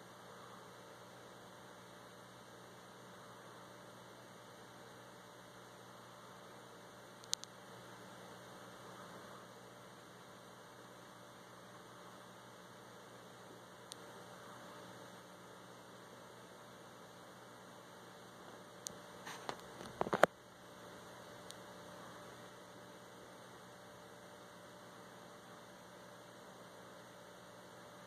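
Steady electrical hum with a faint hiss and no speech. A single sharp click comes about seven seconds in, and a quick cluster of clicks and knocks, the loudest sounds, comes around twenty seconds in.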